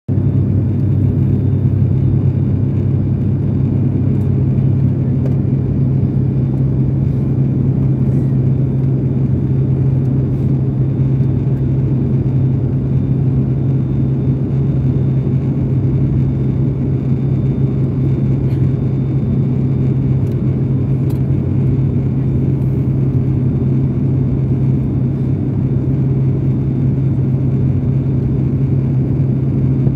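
Steady drone of an airliner in cruise heard from inside the passenger cabin: a loud, even engine hum at a constant low pitch over a wash of rushing air noise.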